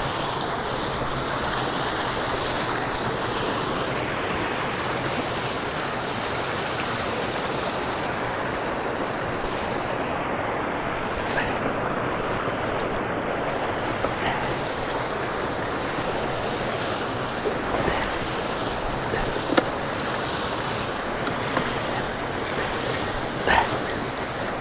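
Water gushing steadily from a culvert outfall pipe into a canal, an even rushing that does not let up. A few faint knocks sound now and then over it.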